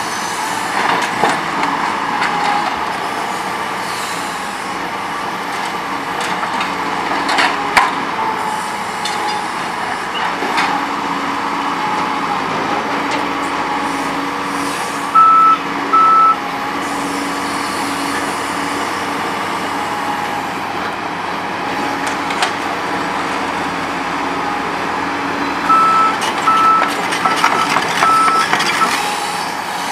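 Liebherr R950 demolition excavator's diesel engine and hydraulics running steadily while its demolition attachment breaks masonry, with brick and concrete rubble knocking and clattering down. A warning alarm gives two short high beeps midway and about four more near the end.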